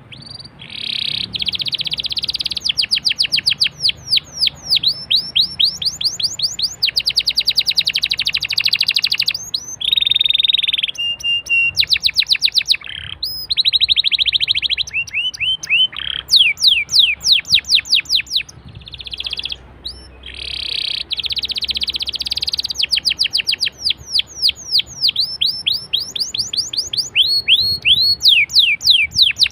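Domestic canary singing a continuous song of fast trills and rolls: each phrase is a rapid run of one repeated note, switching to a new phrase every second or two.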